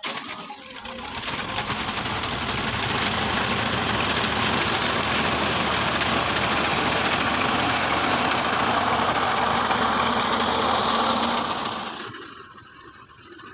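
Tractor engine running under load with a front-mounted wheat reaper's cutter bar clattering as it cuts standing wheat. It grows louder over the first two seconds as the machine comes close, holds steady, then drops sharply to a fainter, distant level near the end.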